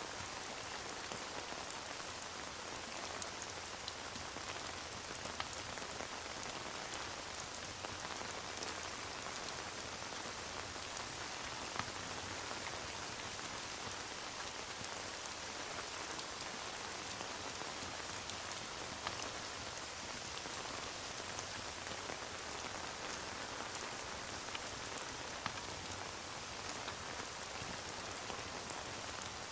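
Steady rain falling, an even hiss of noise with scattered small ticks and pops throughout.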